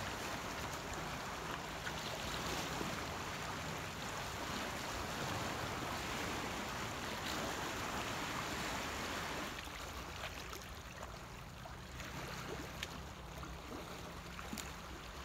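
Sea surf washing over shoreline rocks, a steady rush of water that eases a little about two-thirds of the way through.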